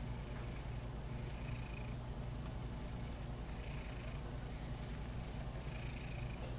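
A mother cat purring steadily, a continuous low rumble.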